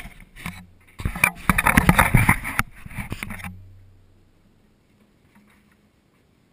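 Close handling noise of a small action camera being set down and adjusted on a wooden bench: a dense run of knocks, clicks and rubbing against the housing that stops after about three and a half seconds.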